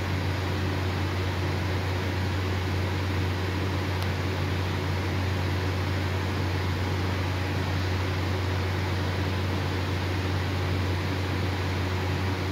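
Industrial edgebander running steadily: a constant low hum with an even whirring hiss over it.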